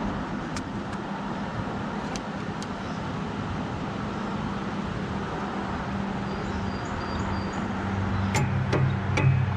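John Deere skidder's diesel engine idling steadily, with a few sharp metal knocks, more of them near the end.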